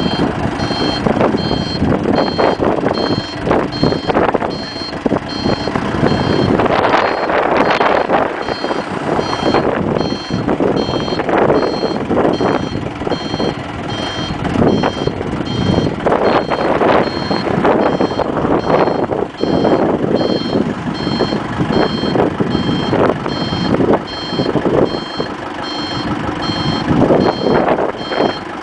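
ACE forklift's reversing alarm beeping in a steady, evenly spaced rhythm, over the forklift's engine working, which surges louder at times.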